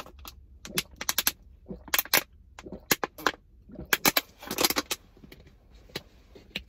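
Thin plastic water bottle crinkling and crackling in irregular sharp clicks as it is tipped up and drunk from.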